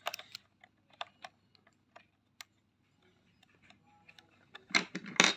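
Scattered small plastic clicks and taps as a flat ribbon cable is worked into its connector on a robot vacuum's circuit board, with a quick cluster of louder clicks near the end.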